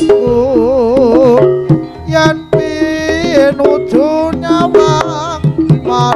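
Live jaranan gamelan music: rhythmic hand-drum (kendang) strokes under a wavering, heavily ornamented melody line that bends and trembles in pitch.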